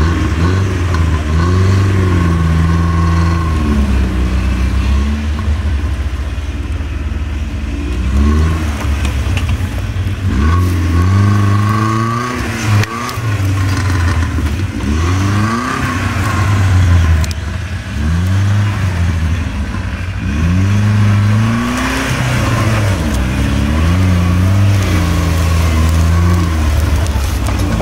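Off-road four-wheel-drive's engine revving up and down again and again, working the vehicle through rough, grassy ground.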